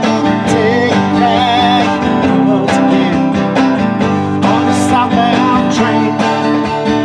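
Instrumental break of a country-style song: acoustic guitar strumming chords under a wavering lead melody line, with no singing.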